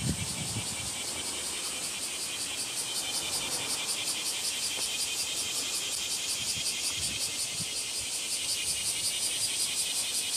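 Cicadas singing in a loud summer chorus, a high hiss that pulses in an even rhythm and slowly grows louder, with a single knock at the very start.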